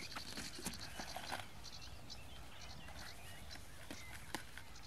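Faint outdoor background with a few soft clicks and rustles scattered through it.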